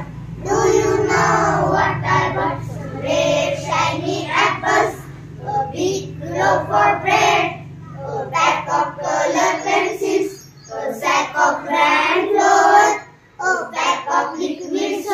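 A group of young girls singing an English school poem together in unison, in short sung phrases with brief breaks between them.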